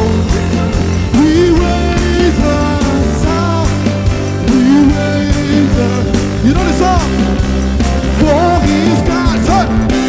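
Live praise band music, loud and steady, with drums, bass and a melody line that slides up and down in pitch.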